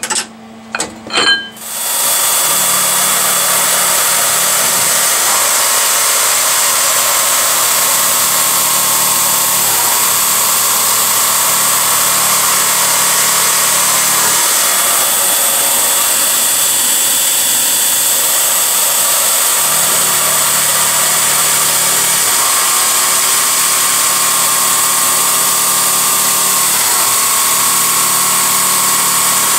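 A few metal clinks from parts and tools being handled, then a milling machine's end mill cutting a slot in an aluminium plate: a steady spindle whine whose pitch shifts every few seconds as the cut goes on, over a loud steady hiss.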